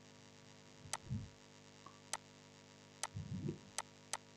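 Faint, sharp single mouse clicks, about five spread over a few seconds, over a low steady electrical hum, with two soft low thumps about a second in and near the end.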